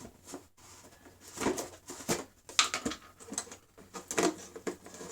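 Irregular clicks, taps and scrapes of small metal hard-drive parts being handled.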